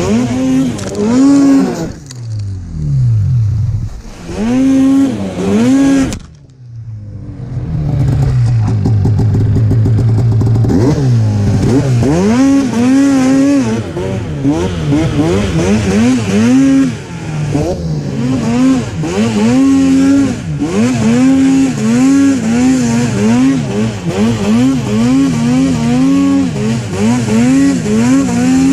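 Snowmobile engine with an MBRP aftermarket exhaust, revving up and down over and over as the throttle is worked. The engine falls off sharply about six seconds in, runs steadier for a few seconds, then the rising and falling revs resume.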